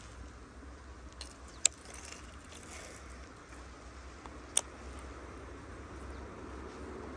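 Baitcasting rod and reel being cast: two sharp clicks, one about a second and a half in and one a few seconds later, as the reel is worked and the lure goes out into the water, over a steady low rumble.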